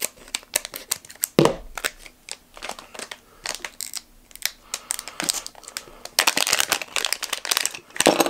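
Small clear plastic parts bag crinkling and crackling as it is handled and opened by hand, the crackles coming thicker and louder for the last couple of seconds.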